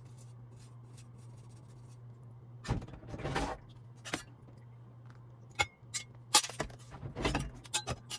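Light clinks, clicks and scraping of small hard objects being handled, with two longer rustling scrapes about three and seven seconds in, over a steady low hum.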